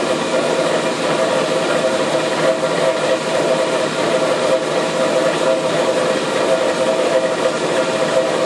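Litton Autolathe glass lathe running, its gas burner flame hissing steadily on the spinning glass tube, with a steady whine running through the hiss.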